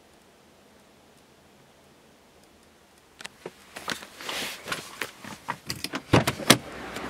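Handling noise of a person shifting on the car's leather rear seat: after about three seconds of near quiet, irregular rustling and sharp clicks, with two loud knocks near the end.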